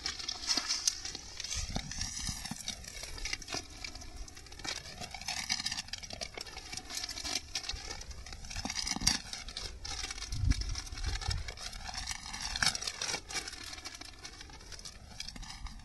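Thin black plastic bag crinkling and rustling as it is picked at and pulled open by hand, with scattered crackles and a few low handling bumps about two-thirds of the way through.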